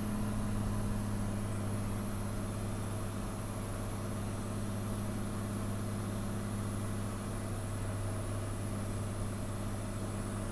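Cirrus SR20's six-cylinder piston engine and propeller droning steadily at an even power setting, heard inside the cockpit.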